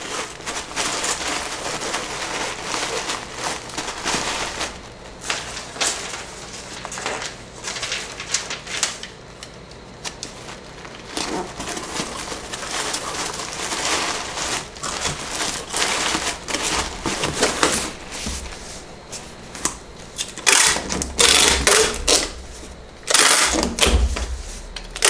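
Kraft honeycomb paper wrap and a cardboard shipping box rustling and crinkling as a wrapped order is tucked in and the flaps are folded. Near the end comes a handheld packing tape gun, run across the box twice to seal it.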